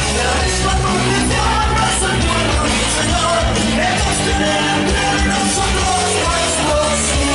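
Loud rock music with a sung, partly shouted vocal over bass and drums.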